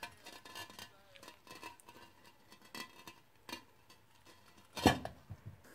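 Claw hammer against screw heads and concrete block: light metal clicks and scraping, with one sharp knock about five seconds in.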